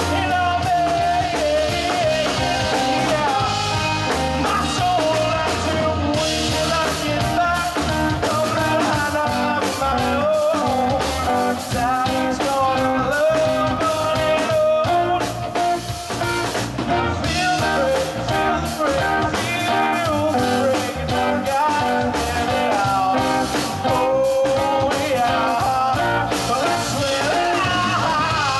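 Live rock band playing: a man singing over electric guitars, bass guitar and drum kit, amplified through a PA.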